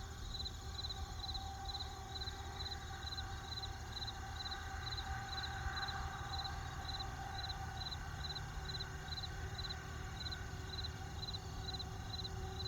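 Crickets chirping steadily in an even rhythm, about two chirps a second, over a low steady rumble from the campfire.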